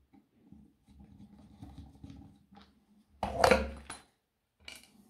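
Handling noise of a cordless drill being picked up and turned over by hand: low rustling, then a short loud clatter of hard objects about three and a half seconds in, and a few small clicks near the end.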